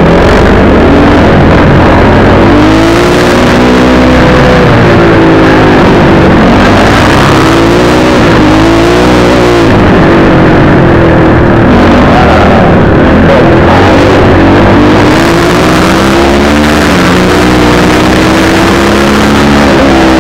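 A 250 cc motocross bike's engine, heard close up from on board, revving hard and easing off over and over as the rider accelerates, shifts and brakes around the track. It is very loud, with wind rush over it.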